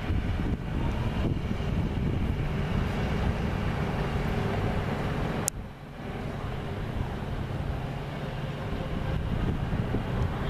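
Steady low background rumble of an open-air arena with a faint steady hum. About halfway through it drops out briefly, with a sharp click.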